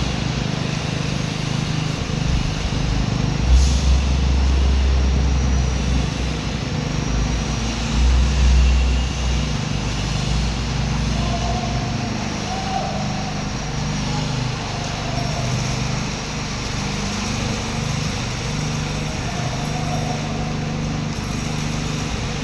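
Concrete power trowel (floor polishing machine) engine running steadily, with a deeper, louder rumble twice.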